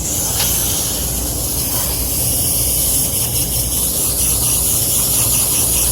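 Water spraying steadily onto an HVAC unit's coil as it is rinsed clean.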